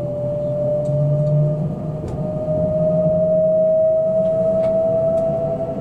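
Kintetsu Ise-Shima Liner electric train heard from inside the car as it pulls away from a stop: a steady motor whine slowly rising in pitch over a low rumble as the train gathers speed.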